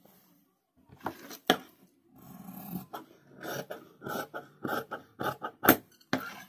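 Tailor's shears cutting through shirt cloth on a cutting table, with the rustle of the fabric being handled. There are a couple of sharp clicks about a second in, then a run of short snips in the second half.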